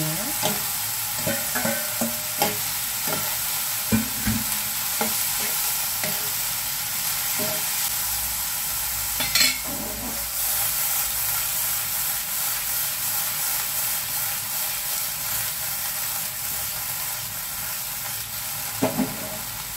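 Minced beef and mushrooms sizzling in a frying pan over a gas flame while being stirred and tossed. Scattered clicks and scrapes of a metal spatula against the pan come in the first few seconds, a louder clatter about nine seconds in, and two knocks near the end.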